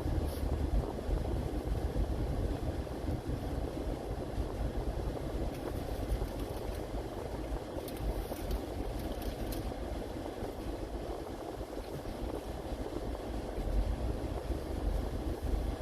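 Steady low rumble of a vehicle running, with a light hiss and a few faint ticks.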